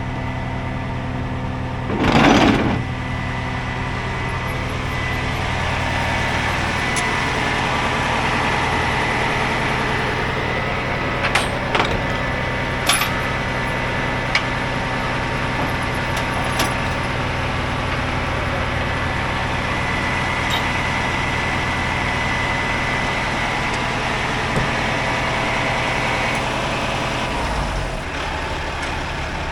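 Tow truck engine running steadily, with a short loud burst of noise about two seconds in and a few sharp clicks. The engine note drops near the end.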